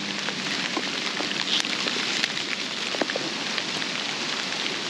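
Steady rain pattering: a dense hiss of small drops with scattered louder ticks.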